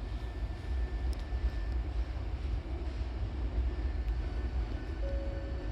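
Steady low rumble of an electric train standing at the platform with its doors open, mixed with station noise. A steady tone starts about five seconds in.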